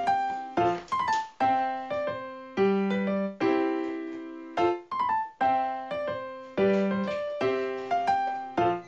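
Background music: a light piano tune, each note struck and then fading, with a new note or chord roughly every half second to second.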